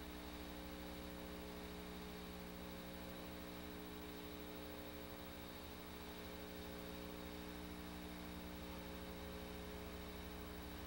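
Faint, steady electrical hum with a light hiss behind it, unchanging throughout.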